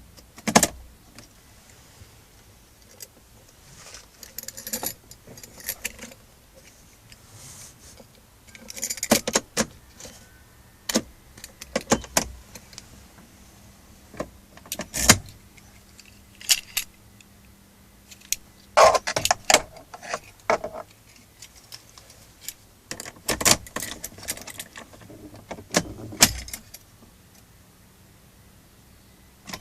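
Irregular metallic clicks, clinks and short bursts of jangling rattle, spaced unevenly over a faint steady hum.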